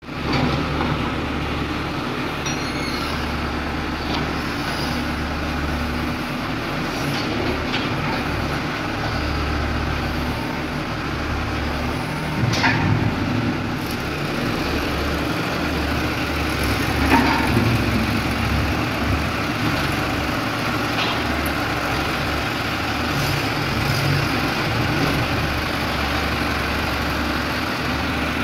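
Mahindra Arjun tractor's diesel engine running steadily as its rear backhoe digs. A few sharp clanks sound over it, the loudest about 12 and 17 seconds in.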